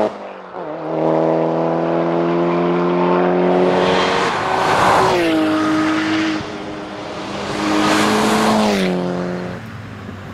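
Mitsubishi Lancer Evolution IX's turbocharged four-cylinder engine driven hard at rally pace. It cuts off sharply at the start, pulls back up and holds high revs, and its pitch steps down about halfway through and again near the end as it shifts or lifts off, with tyre and road noise surging alongside.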